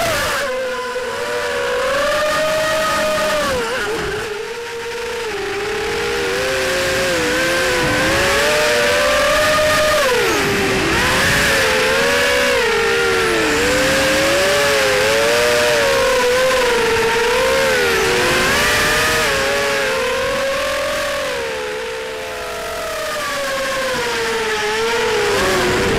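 Onboard sound of a Shen Drones Krieger FPV quadcopter: several brushless motors and propellers whining together, their pitch rising and falling constantly with throttle during acrobatic flight. The sound drops away briefly about four seconds in and again near the end, as the throttle is cut.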